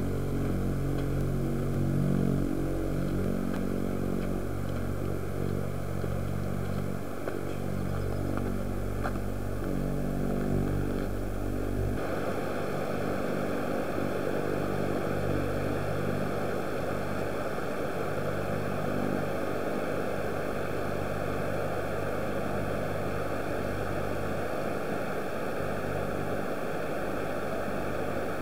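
A steady low hum. About twelve seconds in it gives way abruptly to the even rush of white water pouring over a small river weir.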